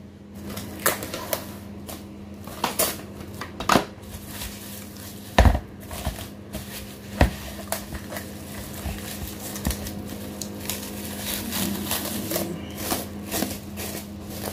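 Plastic cling wrap crinkling as it is stretched and pressed over a plastic container, with irregular knocks and clatter from handling; the loudest is a sharp knock about five seconds in. A steady low hum runs underneath.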